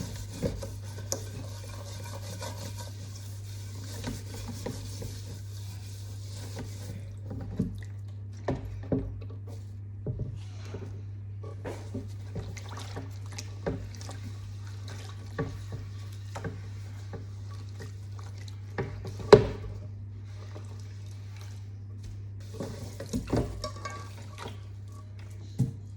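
Kitchen clatter: dishes and utensils clinking and knocking now and then, the loudest knock about two-thirds of the way through, with a hiss over the first seven seconds and a steady low hum underneath.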